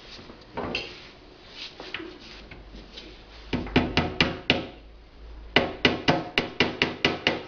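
Sharp knocking taps on the table's panels and fittings while it is put together. A run of about five comes a little past halfway, and then after a short pause about eight more at roughly four a second.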